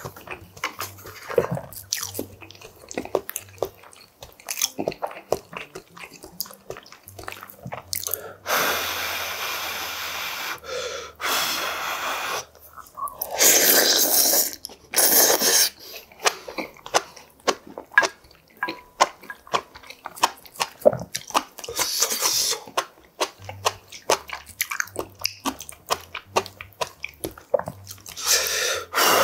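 Close-miked eating of yukgaejang: wet chewing clicks throughout, broken by several long, loud slurps of noodles and soup, the longest about halfway through and another starting near the end.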